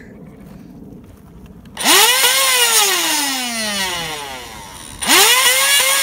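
Electric flywheel foam-dart blaster spinning up, twice: each time the motors whine up to speed in a fraction of a second and then wind down slowly in a falling whine. The first starts about two seconds in and the second near the end.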